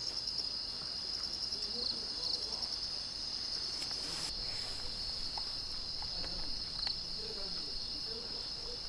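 Crickets chirping in a steady, high-pitched, pulsing trill, with a short soft rush of noise about four seconds in.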